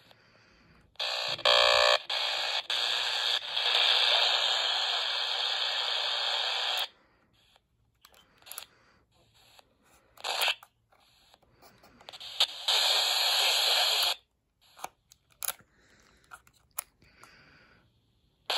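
Eton FRX2 emergency radio's speaker hissing with static as it is switched between bands and stations with no signal coming in. The static runs for several seconds, then cuts in and out in short bursts and clicks with quiet gaps between, and comes back for about two seconds later on.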